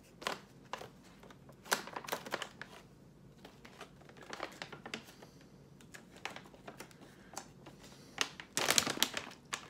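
Snack-mix bag crinkling and rustling as it is opened and handled, in scattered sharp crackles, with a louder burst of crinkling near the end.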